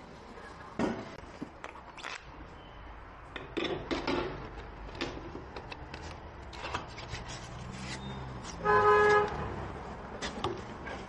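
Scattered clicks and metal knocks as a wheel is fitted and clamped onto a tyre changer's threaded centre shaft. About nine seconds in, a horn toots once for about half a second, louder than the rest.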